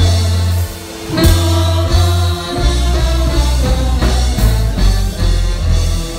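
Loud disco music from a live stage show, with singing over a heavy bass line; the music dips briefly and comes back in with a hit about a second in.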